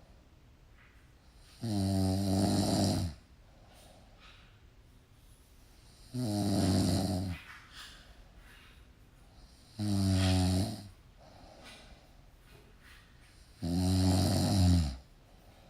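Snoring: four long snores about four seconds apart, each lasting a second or so, with quiet breaths between. The last snore drops in pitch as it ends.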